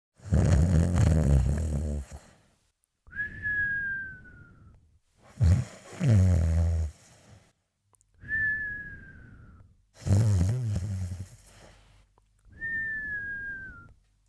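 Snoring in sleep, three full breaths: each a rough, low snore followed by a thin whistle that slides slowly down in pitch, with short pauses between breaths.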